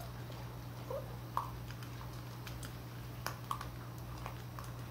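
Vizsla puppies eating dry kibble from a stainless steel bowl: scattered crunches and sharp clicks of kibble and muzzles against the metal, with a few short, high puppy squeaks.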